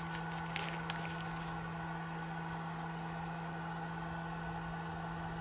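Steady background hum, with a few faint clicks of small parts being handled in the first second.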